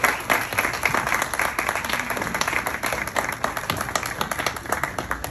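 Audience applauding, many hands clapping densely and thinning out near the end.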